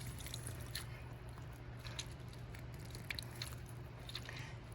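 A lemon squeezed by hand over a bowl: faint wet squishes and a few small clicks and drips, over a low steady hum.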